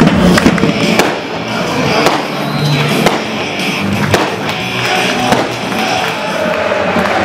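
Loud football crowd noise with sharp bangs about once a second, amid burning pyrotechnic flares.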